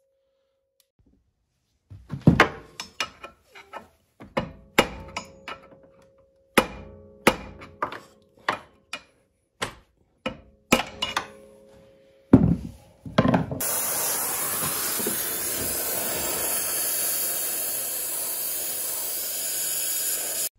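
A run of irregular hammer blows on a steel flywheel puller, several ringing briefly, struck to free a snowmobile flywheel from its crankshaft taper. About two thirds of the way in, the blows give way to the steady hiss of a gas torch heating the flywheel hub.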